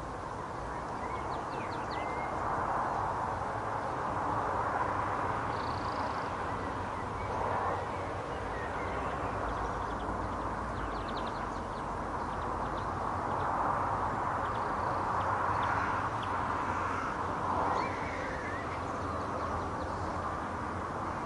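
Outdoor garden ambience: birds calling, with short high chirps and a few harsher caw-like calls, over a steady background rush that swells and eases every few seconds.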